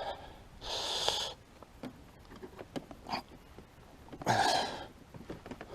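Two heavy breathy exhalations, like sighs of exasperation, about half a second and four seconds in, with faint scattered clicks and taps from handling plastic panel parts.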